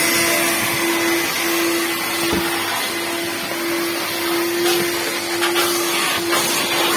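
A motor running steadily, giving a constant hum over a rushing, airy hiss, with the hum dipping briefly now and then.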